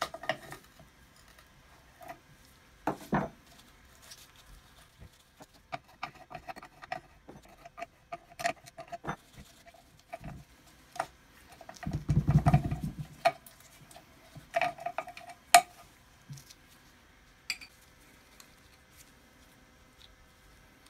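Scattered clicks and light metallic clinks of hand tools and small parts against the cast-metal housing of an old bench grinder as it is taken apart. A louder low rumbling scrape comes about twelve seconds in.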